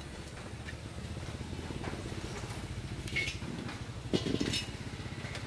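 An engine running steadily at idle with an even low throb, with a couple of short clattering knocks about three and four seconds in.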